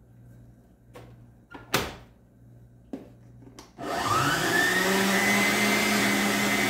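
Arno Planetária stand mixer: a few clicks and one sharp knock as its beater head is lowered into place, then about four seconds in the motor starts with a rising whine and runs steadily, creaming margarine and sugar in the bowl.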